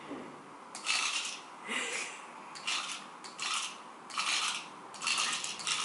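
Remote-control cobra toy moving across a tile floor. Its small motor and plastic body segments clatter in short bursts a little under a second apart, starting about a second in.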